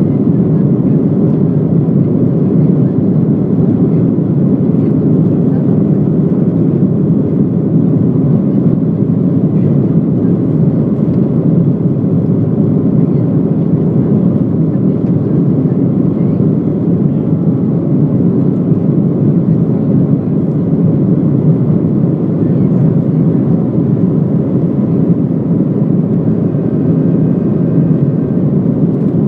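Boeing 737-800 during takeoff: a loud, steady, even rush of CFM56 jet engine and airflow noise, heard from inside the cabin, with no change in level.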